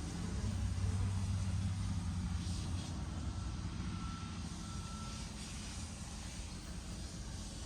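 A low, steady vehicle rumble, slowly fading. Near the middle there is a faint, thin, steady beeping tone lasting about two seconds.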